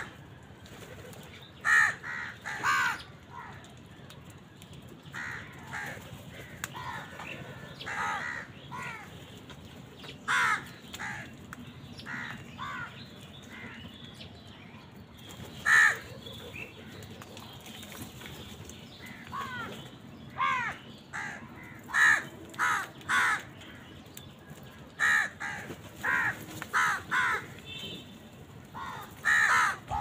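A flock of house crows cawing, short harsh calls from several birds coming at irregular intervals, some in quick runs of two or three, with louder clusters about two, ten and sixteen seconds in and a busier stretch near the end.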